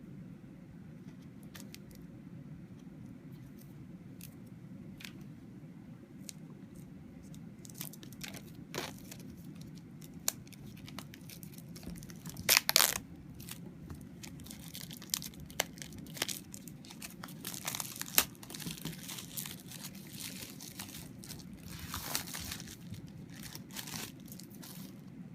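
Packaging being handled and unwrapped: plastic film or wrapping tearing and crinkling, with scattered clicks and taps, the loudest a short burst about twelve seconds in, over a steady low hum.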